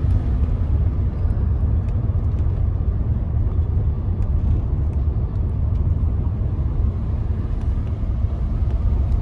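Steady low rumble of a car on the move, heard from inside the cabin with the windows rolled up: engine and road noise.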